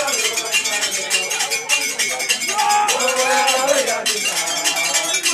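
Several voices singing and chanting together over a dense, rapid clatter of metallic percussion like cowbells.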